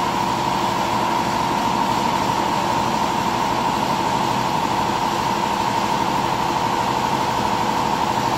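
Steady machine hum from a powered-up CNC wood lathe, with a constant high-pitched whine over a lower drone.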